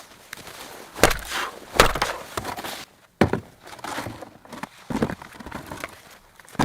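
A series of five heavy, irregular knocks or crunching impacts, spaced about one to two seconds apart.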